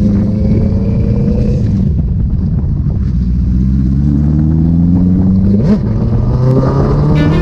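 Sport motorcycle engine heard from on board, accelerating through the gears: its pitch climbs steadily and drops back at upshifts about two and six seconds in.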